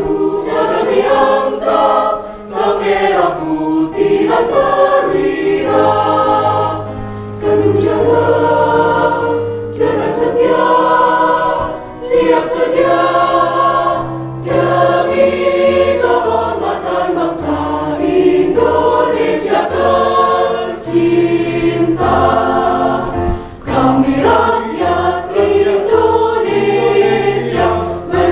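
Mixed choir of women's and men's voices singing a song in parts, holding sustained chords, with brief breaks between phrases.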